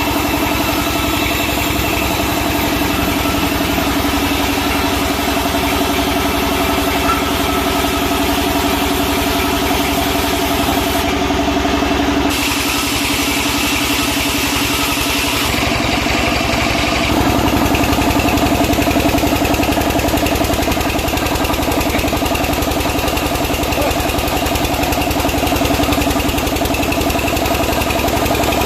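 Sawmill machinery running: a steady motor drone at a constant pitch, whose sound shifts abruptly about 12 seconds in and again about 17 seconds in.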